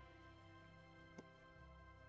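Very faint background music of sustained, held notes, with a single short click a little over a second in.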